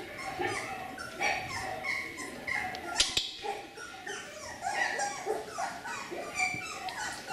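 Beagle puppies whimpering and yipping, many short high-pitched calls one after another, with one sharp knock about three seconds in.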